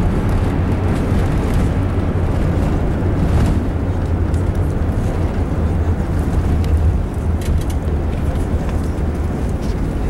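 Loud, steady low rumble inside the cabin of an Airbus A380 during its landing rollout with the spoilers raised. The rumble eases a little about seven seconds in.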